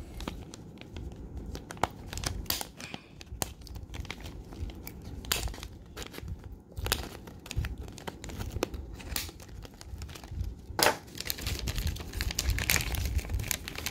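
Paper instruction sheets and a small cardboard box being handled: irregular rustles and sharp clicks of paper, the loudest a little under eleven seconds in.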